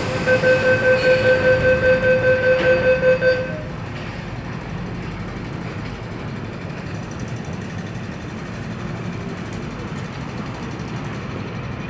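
MTR train and platform-door closing warning: a rapid run of about a dozen steady-pitched beeps, roughly four a second, that stops abruptly after three and a half seconds. A steady rumble of the train and station follows.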